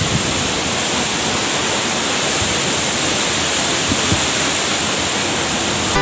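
Waterfall plunging into its rock pool: a steady, even rush of falling water.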